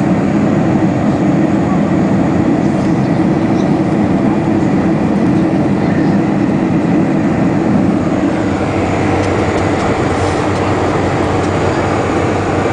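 Jet airliner cabin noise in flight: a deep, steady rumble of engines and rushing air with a hiss above it, unchanging throughout.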